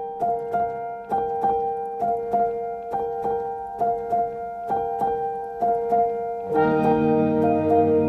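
Background keyboard music: a repeating figure of struck notes over a held tone, filled out by lower sustained notes about six and a half seconds in.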